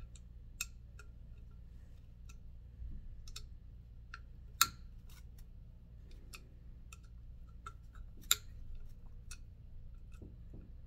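Light metal clicks and ticks of a hex key and small bolts working in the clamp hardware of a Trek Madone Gen 6 seat post, at an irregular pace. Two sharper clicks stand out, one a little before halfway and one about three quarters through.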